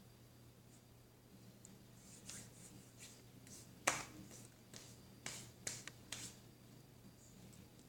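Hands working slime, giving several sharp clicking pops; the loudest comes about four seconds in.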